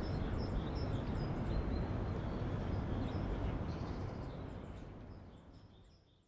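Outdoor city ambience: a steady low rumble with small birds chirping repeatedly over it, the whole fading out over the last two seconds.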